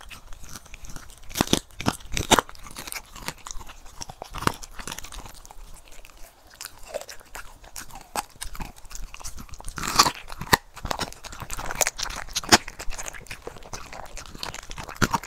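Corgi chewing and crunching food, with irregular crisp crunches and bites, the loudest about ten seconds in.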